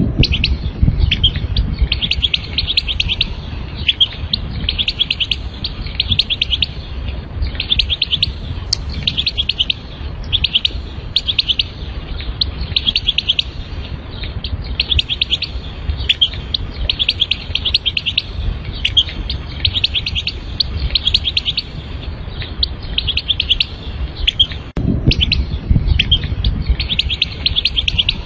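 European goldfinch singing its rapid 'tbtbit' phrase: short bursts of fast, evenly repeated notes, one after another with brief gaps. A steady low rumble runs underneath and grows louder near the end.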